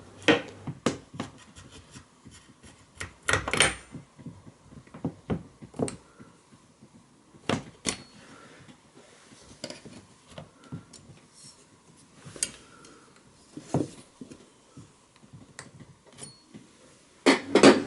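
Irregular clicks, knocks and light scraping of an Allen key held in vice grips being worked into the gap between a uPVC window sash and frame, feeling for the roller lock's locking point.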